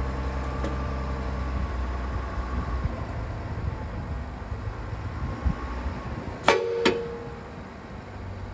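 2021 GMC Yukon's 3.0L Duramax inline-six diesel running with a steady low hum. About six and a half seconds in come two sharp metallic clanks in quick succession.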